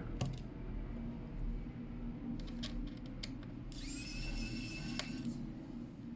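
Wowstick cordless electric precision screwdriver whirring once for about a second and a half, beginning about four seconds in, as it drives out a small laptop screw. Light clicks of small screws and tools are heard around it.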